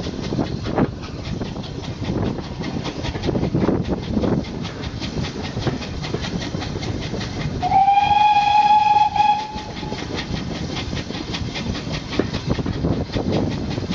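Steam-hauled train running along the line, with a steady rumble and a quick, even clatter of the wheels, heard from an open carriage window. About eight seconds in, the steam locomotive's whistle sounds one steady note for about two seconds.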